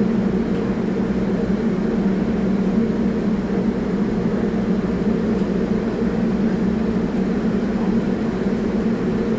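R44 subway train standing at the platform, giving off a steady low hum from its onboard equipment while it waits.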